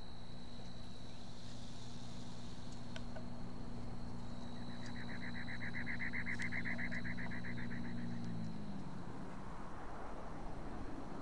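Outdoor background: a distant engine hums steadily, then drops in pitch and fades about eight and a half seconds in. Over it, a rapid pulsing trill of about seven pulses a second runs for a few seconds in the middle.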